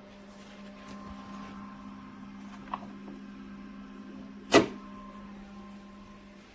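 A steady low electrical hum with a small click about two and a half seconds in and a single sharp knock about four and a half seconds in.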